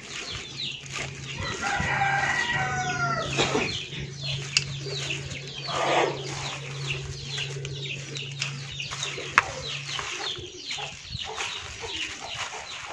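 A rooster crowing once about two seconds in, with hens clucking, over the crackle of a plastic-bag-gloved hand tossing salad leaves in a basin. A low steady hum stops about ten seconds in.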